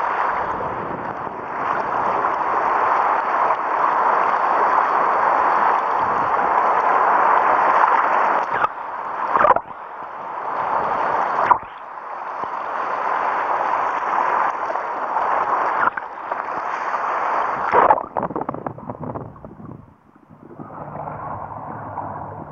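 Surf breaking over shallow rocks, heard underwater: a dense rush of churning water and bubbles, broken by a few sudden brief drops. About three-quarters of the way through it dies down to a quieter, lower steady sound.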